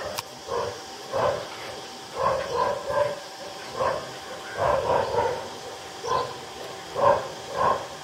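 An animal calling in short loud cries, given in quick groups of two or three about every second and a half.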